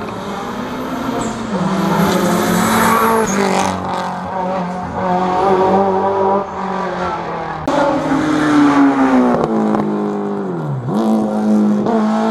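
Rally car engine running hard on a hill climb, revving up and down through the gears, with a deep drop in pitch and a quick climb again near the end.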